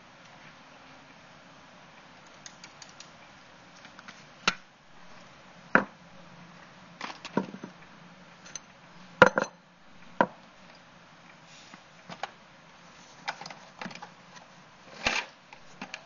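Irregular knocks, clicks and clatters of small household objects being handled and set down, about a dozen in all, the sharpest around the middle.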